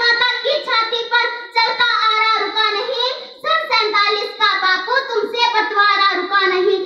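A young girl's high voice reciting in Hindi in a loud, impassioned, sing-song delivery, in long phrases with a short breath pause about three seconds in.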